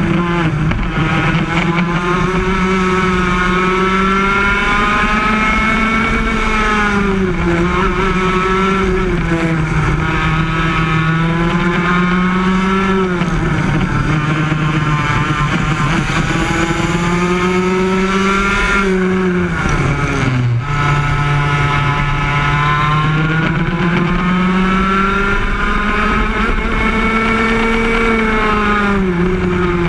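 Yamaha KT100 single-cylinder two-stroke kart engine running at racing speed, heard onboard; its pitch sags several times as the kart slows for corners and climbs again on the straights, with the deepest drop about twenty seconds in.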